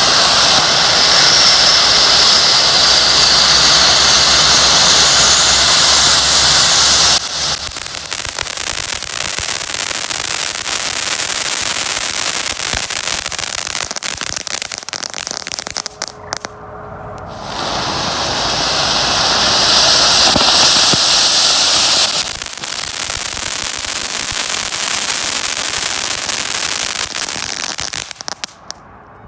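Two Color Jet firework fountains burning one after the other. Each opens with a loud steady hiss of its jet for several seconds, then turns to crackling. There is a short lull between the two, about halfway through.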